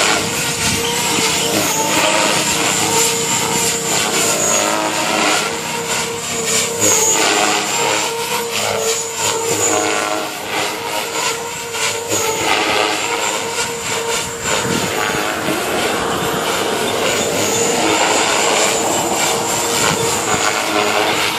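JR Forza 450 radio-controlled model helicopter in flight: a steady rotor and motor whine with a high tone, its pitch sweeping up and down as the helicopter manoeuvres.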